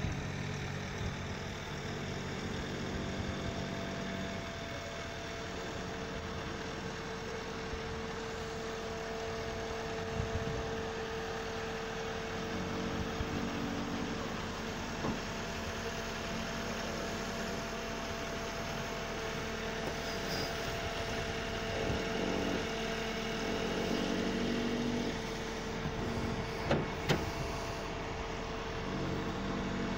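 Truck-mounted aerial work platform running: a steady engine and hydraulic hum with a faint held whine that comes and goes as the boom lowers the basket. Two sharp clicks about three seconds before the end.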